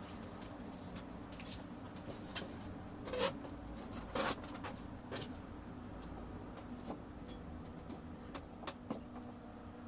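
Scattered light clicks and knocks of monitor stand parts being handled and fitted, two louder knocks about three and four seconds in, over a steady low hum.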